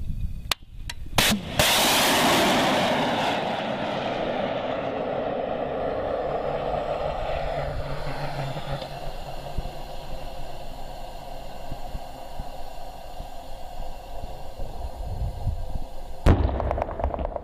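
Shoulder-launched anti-tank guided missile firing: two sharp cracks close together, the launch charge and then the flight motor lighting, followed by a loud rushing motor noise that fades over several seconds as the missile flies off. Near the end, a distant explosion as it hits the target.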